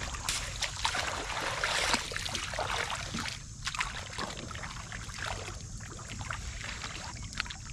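Shallow water sloshing and splashing as a person wades through it and gropes in the mud by hand: a run of small splashes and swishes, busiest in the first two seconds.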